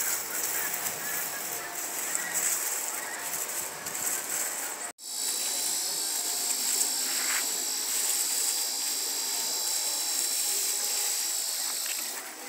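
A steady high-pitched buzz, with a sudden brief dropout about five seconds in, after which it comes back stronger and eases off near the end.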